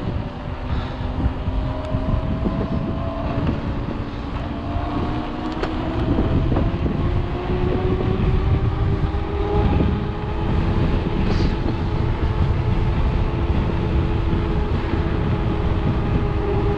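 Wind buffeting the microphone and the rolling rumble of a mountain bike riding down a trail, with a faint humming tone that slowly rises in pitch.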